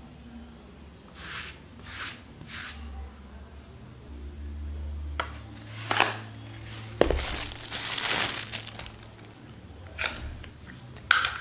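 Three short swishes of a fabric lint brush near the start. Then a plastic lint roller is pried open with sharp plastic clicks, followed by a couple of seconds of crinkling, tearing rustle from its wrapping or sticky sheet, and a few more clicks near the end.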